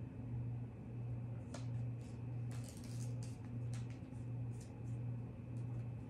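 Paper being folded and creased by hand, giving scattered short crinkles and snaps, most of them between about one and a half and four seconds in. Under it runs a steady low hum that swells and dips about every 0.7 seconds.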